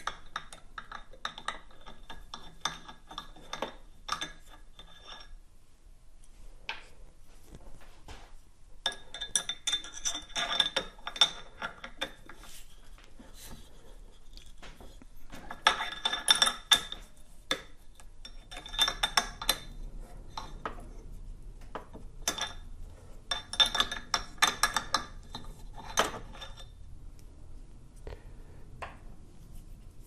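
Steel Allen key working the set screws in a KingSong KS18XL's pedal hinge: several bursts of small metallic clicks and clinks as the key turns and shifts in the screws, with quieter pauses between.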